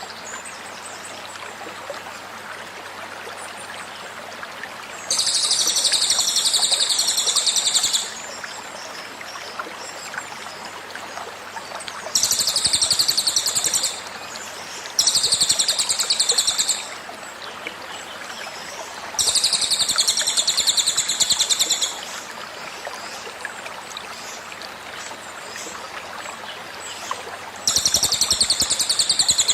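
Cililin songbird giving its rapid 'tembakan' song: five loud, very fast, high-pitched trilled bursts, each about two to three seconds long, over the steady rush of a flowing stream.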